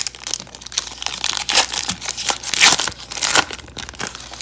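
Foil wrapper of a 2018 Panini Prestige football card pack being torn open and crinkled by hand: irregular crackling rustles.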